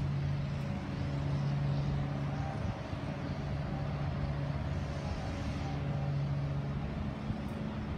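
Steady mechanical hum, like a motor or engine running: a strong low drone with a few fainter steady higher tones over a hiss.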